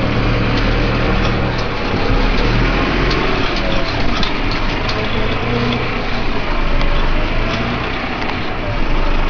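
Valtra N141 H tractor's diesel engine running steadily under load while ploughing, with a constant low hum and faint rattling ticks.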